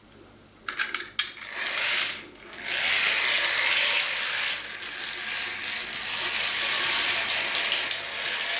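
A few sharp clicks about a second in as the controller is set, then a Tri-ang model steam locomotive running in reverse round its metal track. Its small electric motor and wheels make a steady whirring rattle, briefly dropping off at first, and the run is a bit hesitant, which the owner puts down to the tarnished track.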